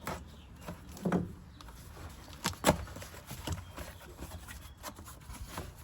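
Cardboard box being opened and its packing handled: a string of sharp knocks and clicks with rustling between them, the loudest a pair of knocks about two and a half seconds in.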